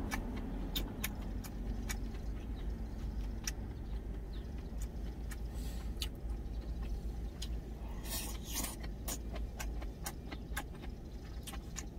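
Wooden chopsticks clicking irregularly against a stainless steel lunch container while someone eats, with a brief rustle about eight seconds in, over a steady low rumble inside a truck cab.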